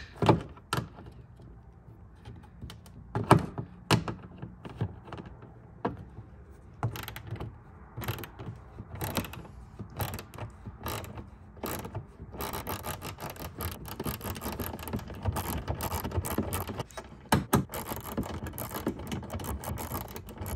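Small hand ratchet with an 8 mm socket clicking as it backs out a bolt. There are scattered single clicks at first, then fast, steady ratcheting from about halfway through.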